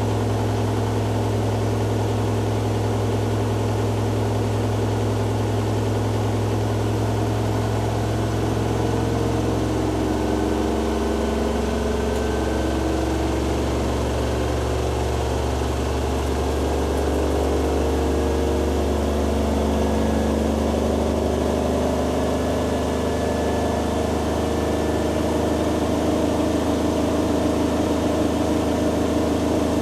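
Hoover Dynamic Next DXA610IW3 washing machine on its spin cycle: a steady motor and drum hum with shifting tones whose low drone drops in pitch about ten seconds in.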